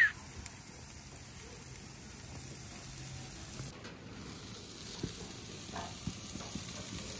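Tri-tip steaks searing on the hot grates of a gas grill, a steady sizzle with a few faint pops in the second half.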